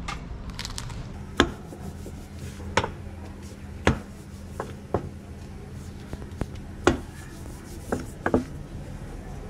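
A rolling pin working lahmacun dough on a floured counter, giving about eight sharp knocks at irregular spacing, a couple of them in quick pairs, over a steady low hum.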